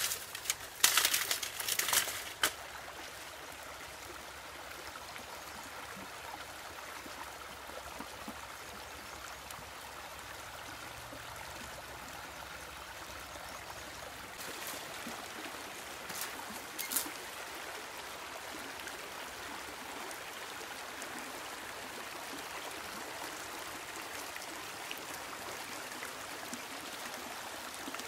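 Shallow rocky creek running over stones, a steady rush of water. In the first couple of seconds, a quick series of cracks and snaps of dry sticks and brush as dogs push through undergrowth.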